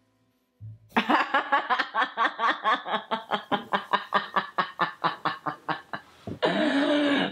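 A woman laughing hard: a quick run of short ha-ha bursts, about five a second, for some five seconds, then a longer drawn-out laugh near the end.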